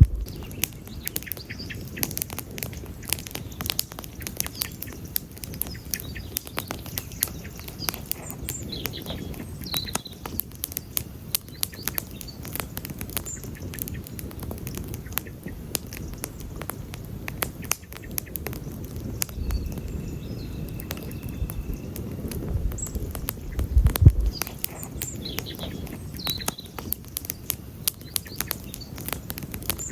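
Wood campfire crackling and popping, with many sharp snaps over the low rumble of the flames and one louder pop about 24 seconds in. A few short high chirps come through now and then.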